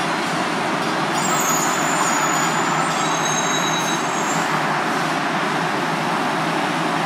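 Steady mechanical rumble and hiss of electric trains at a station, with faint high-pitched whines that come in about a second in and fade out around four and a half seconds.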